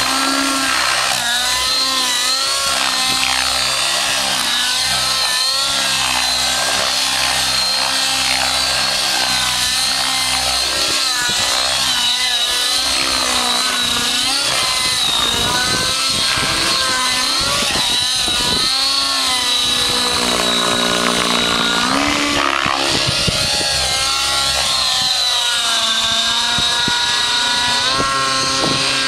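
Curtis Rave 90 radio-controlled nitro helicopter flying aerobatics: its small glow engine and rotors give a loud mechanical buzz whose pitch keeps rising and falling, with a steady high whine above it. About twenty seconds in the pitch drops away in a long falling glide, then climbs again.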